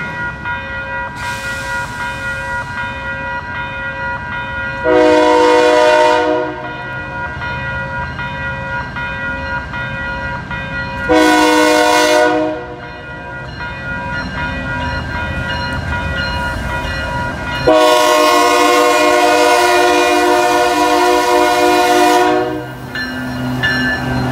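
Canadian Pacific diesel locomotive air horn sounding three long blasts as the coal train approaches the grade crossing; the last blast lasts about five seconds. Between and under the blasts, the crossing-signal bells ring steadily, and near the end the locomotive rumbles past close by.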